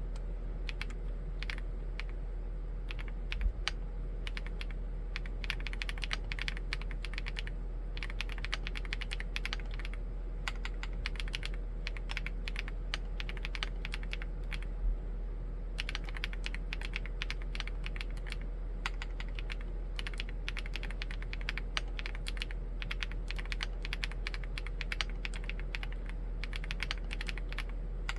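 Typing on a Chilkey ND75 75% mechanical keyboard fitted with Gateron EF switches: fast runs of keystrokes with short pauses, and a couple of louder strokes, about three and a half seconds in and near fifteen seconds. A steady low hum sits underneath.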